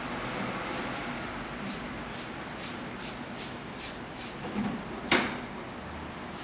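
Domestic cat watching out of a window and giving a short, sharp chirp about five seconds in, after a run of faint high clicks at about two or three a second.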